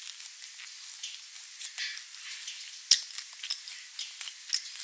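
Close-miked chewing of crunchy chocolate pillow cookies: a steady run of small crisp crackles, with one sharp, much louder click about three seconds in.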